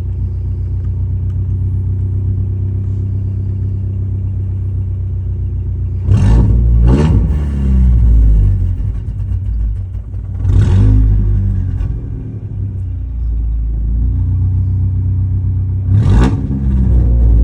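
2015 Ford Mustang EcoBoost's 2.3-litre turbocharged four-cylinder engine idling, with the throttle blipped four times, twice in quick succession about six seconds in, again near the middle and once more near the end. The owner reports a misfire in this engine.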